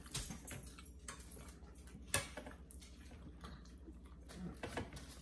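Quiet eating sounds: chewing and mouth noises with a few small clicks, the sharpest about two seconds in.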